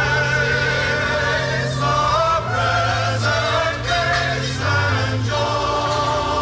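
Choir singing sustained chords, a slow hymn-like piece used as background music.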